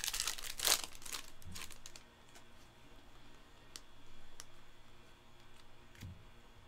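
Panini Mosaic basketball cards being handled during a pack opening: a quick flurry of rustling and card clicks in the first second, then a few sharp, isolated clicks as cards are slid and flicked against one another.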